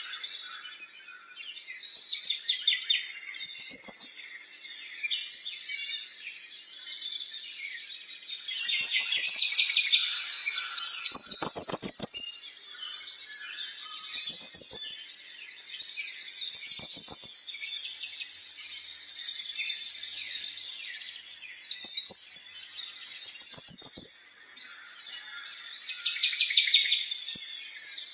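Many small birds chirping and twittering at once in a dense, unbroken chorus of high calls, with a few short clicks mixed in.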